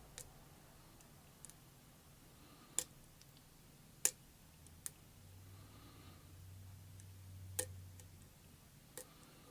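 Faint, scattered clicks of lock picking in a Kwikset five-pin pin-tumbler cylinder, the pick and tension tool ticking against the pins, about seven clicks at irregular intervals a second or more apart.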